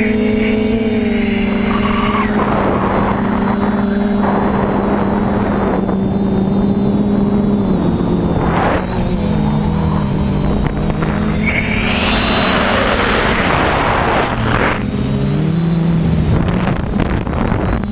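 TBS Discovery clone quadcopter's motors and propellers running with a steady hum, as heard from the camera mounted on it. The pitch wavers now and then as the throttle changes, and swells of rushing noise come and go over it.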